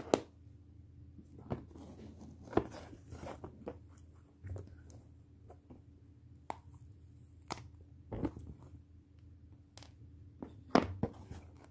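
Hands handling hardened epoxy resin pieces and a small silicone mold on a tabletop: irregular light clicks, taps and short crackles.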